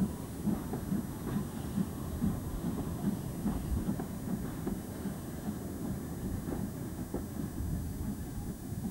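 Steam train, locomotive 73050 hauling coaches, moving slowly past: a steady low rumble with a regular beat about twice a second.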